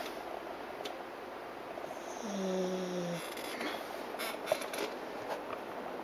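American Staffordshire Terrier snoring in its sleep, steady breathy snores. One louder snore a little past two seconds in carries a steady low tone.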